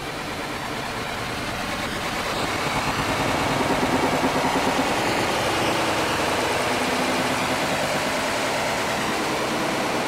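An engine running steadily with a faint pulsing hum, growing louder over the first three seconds or so and then holding.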